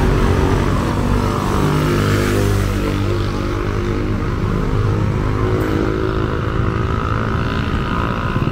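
Motorcycle engine running close by, a steady engine hum whose pitch drifts a little up and down, with street noise.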